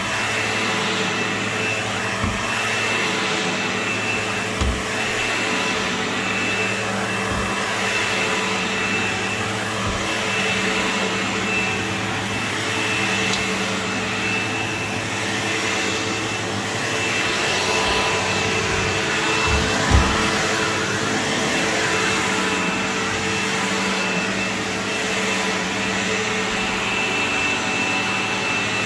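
Sebo X4 upright vacuum cleaner running steadily while being pushed back and forth over carpet. Its motor hum carries a steady high whine, and there are a few short, low knocks along the way.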